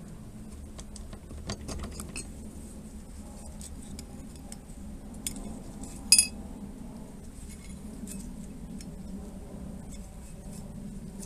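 Scattered small metallic clicks and clinks as the parts of a motorcycle rear hub are handled, with one loud ringing clink about six seconds in.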